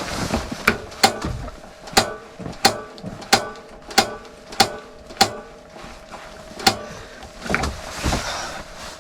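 A portable heater's igniter being clicked over and over, about ten sharp clicks with a short ring, one every two-thirds of a second or so, stopping about seven seconds in; the heater does not light. A steady faint tone runs underneath.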